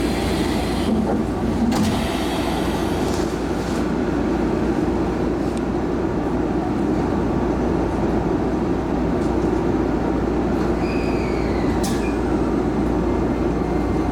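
Steady hum and rumble of a Shizuoka Railway A3000 series electric train standing at a station, heard inside its rear cab. Near the end comes a short falling whistle, then a sharp click.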